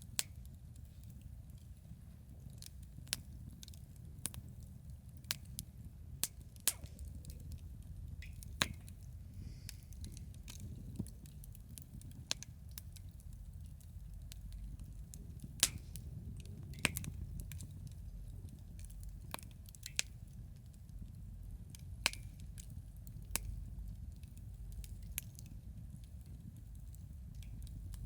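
Wood campfire crackling: sharp, irregular pops about every second or two over a steady low rumble.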